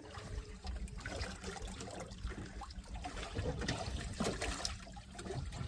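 Water splashing and trickling, with scattered small knocks, as a hooked blue catfish is worked up to the surface.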